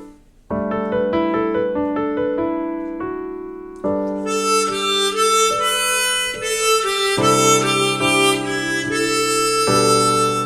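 Gentle keyboard accompaniment plays a few broken-chord notes, then a harmonica comes in about four seconds in with the song's melody in held notes over the backing.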